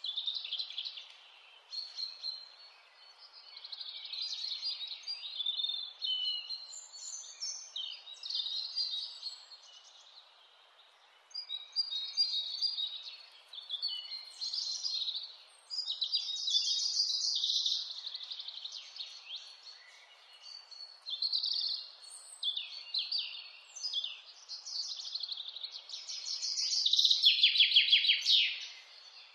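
Wild mountain songbirds singing in short, repeated phrases, with a loud rapid trill near the end, over a steady faint hiss.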